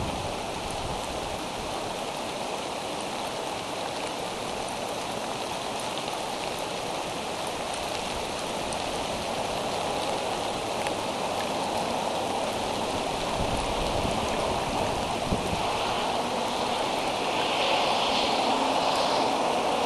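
Steady rain falling on the nest and tree, picked up by the nest camera's microphone. It grows a little louder near the end.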